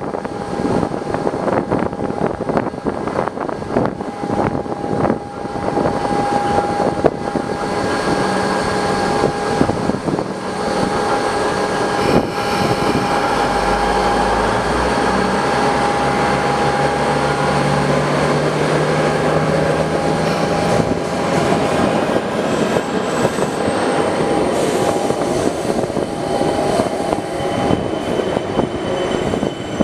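Electric suburban trains at a platform: a Siemens Nexas set pulls in while another train stands by with a steady hum and whine. In the middle, the arriving train's motors give a low whine that changes pitch in steps.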